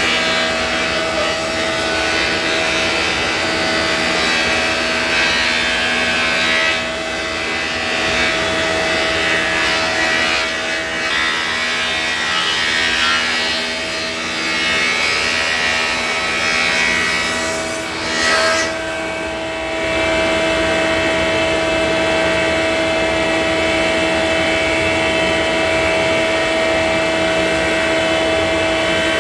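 Power saw running steadily while ripping a wooden board into strips for boat ribs; the cutting noise rises and falls through the first two-thirds and eases off about nineteen seconds in, while the motor keeps running.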